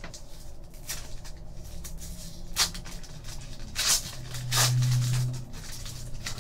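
Foil wrapper of a Panini Titanium hockey card pack crinkling and tearing as it is opened by hand, in irregular sharp crackles, the loudest about two and a half and four seconds in. A low hum swells for about a second past the middle.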